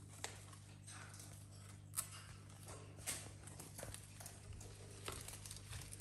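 Parrots picking at a fresh corn plant: faint scattered beak clicks and leaf rustles, with a few sharper clicks, over a low steady hum.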